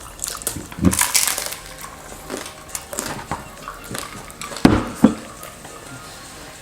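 Pizza-eating noises close to the microphone: crunching and crackling bites and handling sounds, with two sharp knocks a third of a second apart near the end.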